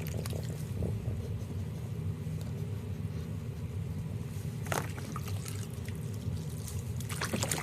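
Water trickling and sloshing lightly in a small baby bathtub, with a few sharper splashes about five seconds in and again near the end, over a steady low hum.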